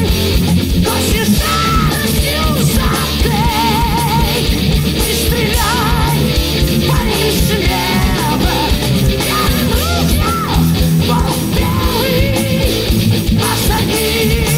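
Heavy rock/metal song: electric guitars and drums playing continuously, with a lead line wavering in pitch.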